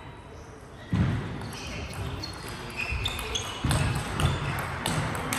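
Table tennis players moving about between points: scattered footsteps and thumps with a few short shoe squeaks on the court floor, and faint voices in the hall.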